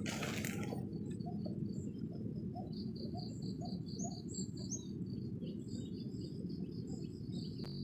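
Wild birds chirping in the trees: a quick run of short high chirps through the middle and fainter lower calls repeating about twice a second, over a steady low background noise.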